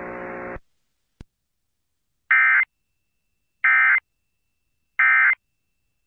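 Emergency Alert System End of Message data bursts: three short, identical electronic warbling tone bursts about a second apart, the SAME digital code that closes a relayed flash flood warning. A faint hum fades out just before them.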